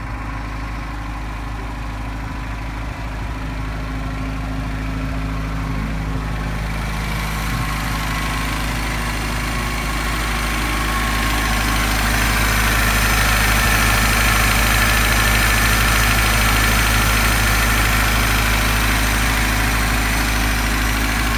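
Carburetted four-cylinder VAZ-2105 engine, swapped into a VAZ-2101 Zhiguli, idling steadily with its air cleaner off. The sound grows gradually louder over the first dozen seconds, then holds.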